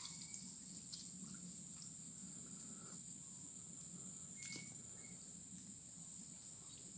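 Insects chirring in a steady high-pitched drone, with a second, pulsing trill above it. A couple of short faint chirps come about four and a half seconds in.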